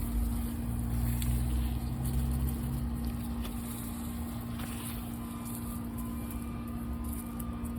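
A steady low motor hum with a fixed pitch, carrying a deeper rumble for the first few seconds.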